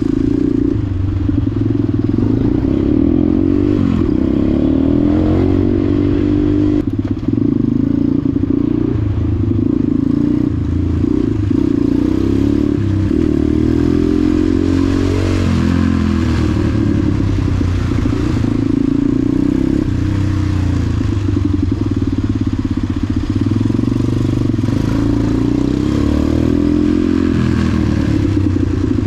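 KTM supermoto's engine running under the rider, the revs rising and falling again and again as the throttle is opened and closed through slow traffic.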